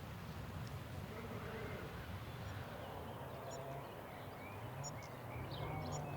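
Livestock barn or farmyard ambience: a steady low hum with faint animal calls, and small bird chirps from about the middle on.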